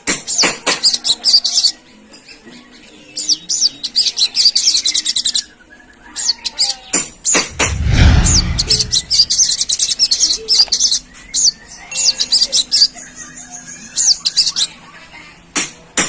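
Sogon (srikantil) sunbird chattering: rapid strings of high, thin chirps in runs of one to two seconds, with short pauses between runs. About eight seconds in there is a brief, loud rustling thump.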